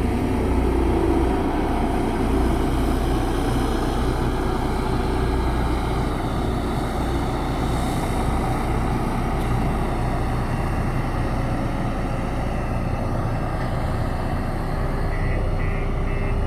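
A JCB backhoe loader's diesel engine running steadily.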